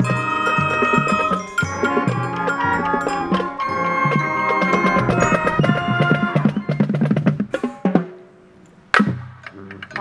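Marching band playing its show music outdoors: held chords over drums and mallet percussion, then a run of quick drum strikes about six seconds in. The music breaks off briefly a little after eight seconds, then comes back with one sharp loud hit.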